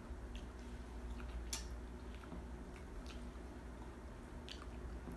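Close-up eating of crispy fried chicken: chewing and biting with wet mouth sounds and scattered crisp crackles, the sharpest about one and a half seconds in, over a steady low hum.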